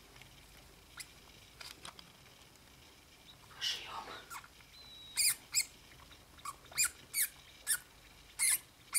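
Degus squeaking: a run of about eight short, high-pitched squeaks in the second half, after a brief rustle in the shredded-paper bedding.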